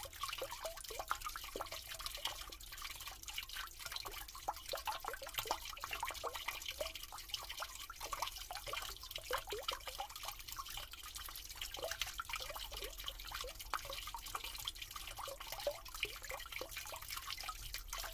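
Water running down a drain, a continuous gurgle of many small bubbling plops and drips over a steady hiss.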